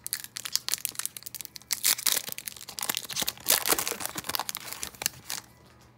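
Foil wrapper of an Upper Deck hockey card pack being torn open and crinkled by hand: a dense run of sharp crackles that stops shortly before the end.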